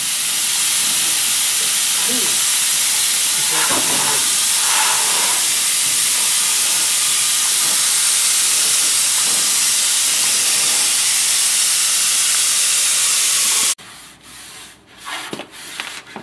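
Gravity-feed air spray gun hissing steadily as it blows zinc rust converter into a car's rocker panel. The air blows constantly because the gun's valve does not shut the air off. It cuts off suddenly near the end, leaving a few faint knocks and rubbing sounds.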